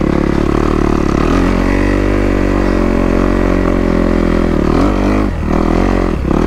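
Kawasaki KX250 dirt bike's four-stroke single-cylinder engine running under load on a rutted trail climb. Its pitch wavers as the throttle is worked, with two brief dips in engine sound about five and six seconds in, where the throttle is eased off for a moment.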